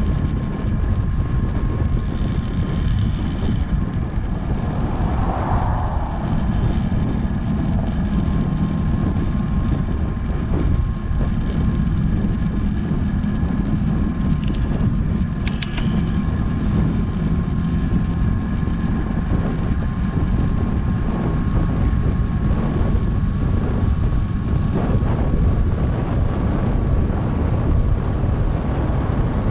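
Wind rushing over a GoPro HERO7's microphone on a fast downhill bicycle ride: a loud, steady low rumble and rush, with a faint steady high whine throughout and a couple of brief clicks about halfway through.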